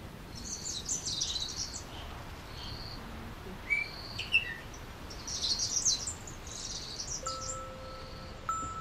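Wild songbirds singing and calling: two bursts of quick high chirping song, short notes in between, and two sharp, louder chirps about four seconds in. A few held chime-like notes of background music come in near the end.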